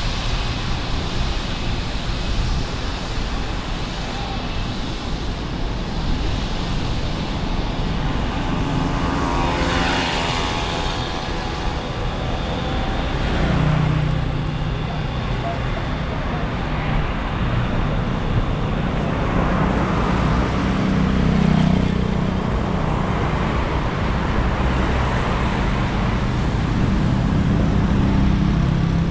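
Street traffic in the rain: a steady hiss of rain and wet road with cars passing, one going by about ten seconds in, and engines rumbling low through the rest.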